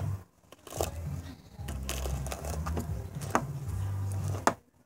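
Handling noise: a few light knocks and ticks with some rustling as things are touched, over a steady low hum. Twice, near the start and just before the end, it all drops out almost to silence.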